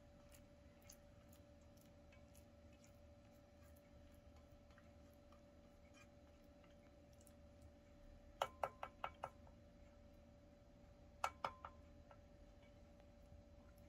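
Near silence: quiet room tone with a faint steady hum. A quick run of about five sharp clicks comes about eight seconds in, and three more follow about three seconds later.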